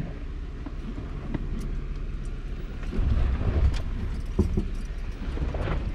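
Jeep Wrangler Rubicon engine running at low speed, heard from inside the cab while crawling a steep, rutted dirt trail. It grows louder about three seconds in, and a few knocks come from the body and suspension over the rough ground.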